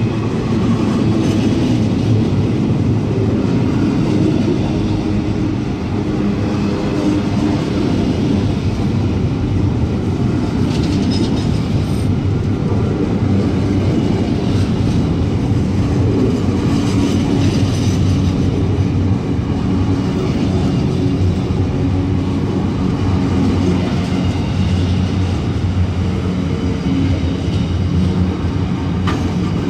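Freight train of container and curtain-sided wagons rolling past close by: a steady, loud rumble of wheels on rail with occasional faint clicks.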